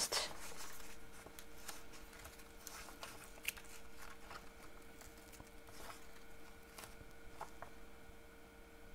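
Faint handling sounds of ribbon being pressed and stuck onto a paper lantern: soft paper rustles and small ticks, one sharper tick about three and a half seconds in, over a faint steady hum.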